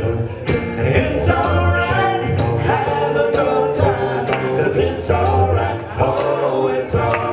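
Men singing into microphones over a live band, with guitar, a heavy bass line and sharp drum hits.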